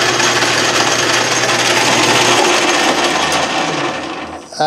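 Craftsman Atlas 12-inch lathe running with its change-gear train engaged, the straight-cut (spur) gears meshing loudly; straight-cut gears like these are noisy by nature. The noise fades away in the last second.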